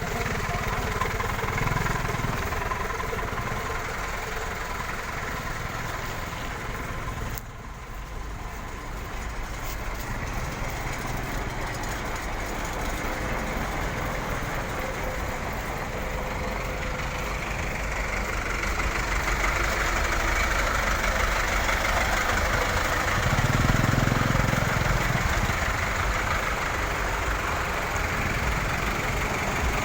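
Motor vehicle engines running steadily, idling as traffic stands queued, with a louder low engine swell about two-thirds of the way through.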